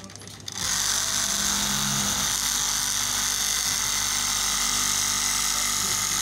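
Electric straight-knife cloth cutting machine starting up about half a second in, then running steadily as its blade cuts through a stack of fabric layers along a paper pattern.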